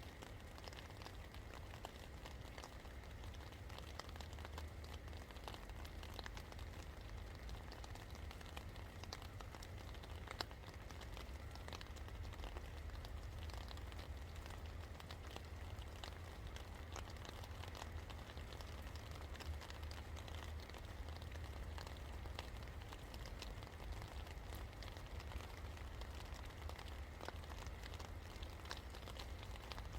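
Steady rain falling, with many small drops ticking and pattering on surfaces over a low, constant rumble.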